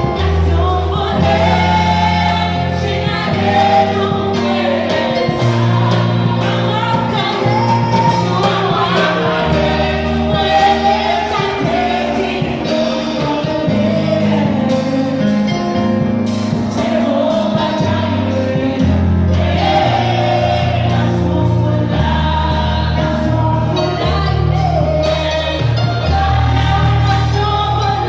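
Female vocal group singing a gospel worship song into microphones, with lead and harmony voices over instrumental backing: sustained bass notes that change every couple of seconds and a steady beat.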